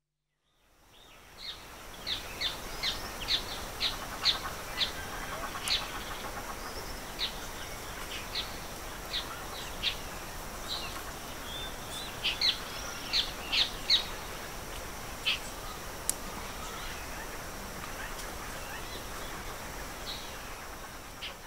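Outdoor ambience of birds chirping, short sharp calls in quick spells of about two a second, over a steady background hiss with a thin high whine. It fades in about a second in.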